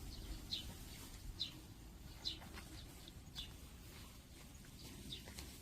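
A bird chirping repeatedly, one short high-pitched chirp roughly every second, each dropping slightly in pitch, over a faint low rumble.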